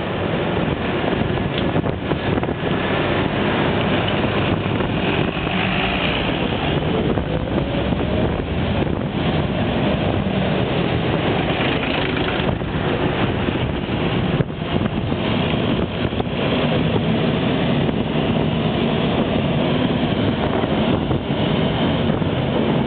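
Wind rushing over the microphone of a camera riding on a moving bicycle, mixed with the steady noise of city traffic alongside.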